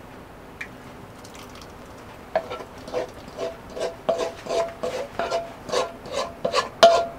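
Wooden spatula scraping thick peanut sauce out of a frying pan into a glass bowl: after a quiet start, a run of short scraping strokes begins about two seconds in, roughly one every half second.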